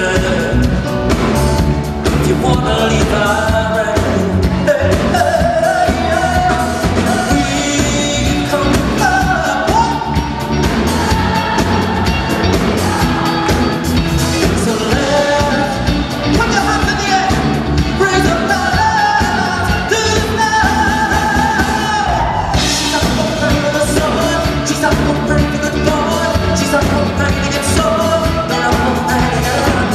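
Live pop music: a male singer sings a melody over a full backing band with a steady beat, part of a medley of pop hits.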